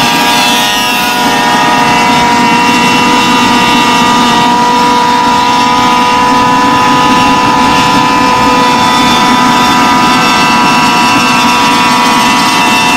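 Goped's modified CY47 two-stroke engine with a Know Fear expansion-chamber pipe, running under way at nearly steady revs. Its pitch dips slightly about a second in.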